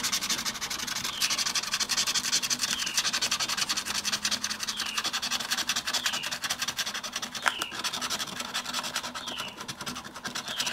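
Scratch-off lottery ticket being scratched, its coating scraped away in rapid, steady strokes.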